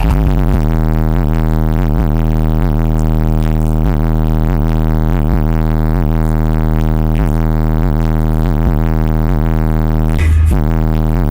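Four 12-inch Pioneer Premier TS-W3002SPL car subwoofers playing a loud, deep bass track: sustained low notes with a steady pulse about twice a second, briefly changing about ten seconds in.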